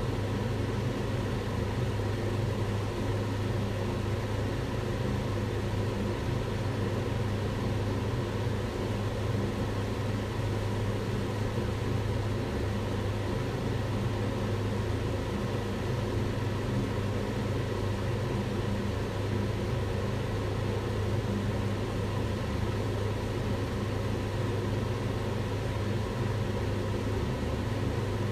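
Kitchen extractor hood fan running steadily, a constant whooshing hiss over a low hum.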